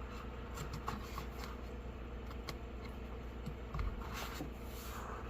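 Faint handling noises of items being picked up and moved about: scattered light clicks and rustles, with a soft knock about four seconds in, over a low steady hum.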